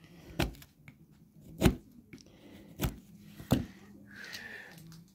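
Four sharp knocks of a carving knife cutting into a small piece of wood held in the hand, spaced about a second apart, followed near the end by a brief rustle.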